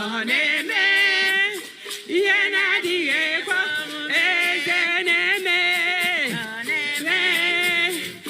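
A voice singing with strong vibrato in long wavering phrases, each a second or two long with short breaths between.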